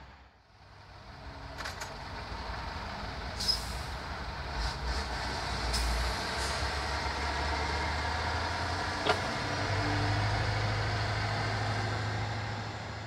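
Tatra 815 Agro truck's air-cooled diesel engine running while the raised body tips out a load of corn silage, with a few short sharp knocks along the way. The engine note steps up slightly about two-thirds of the way through.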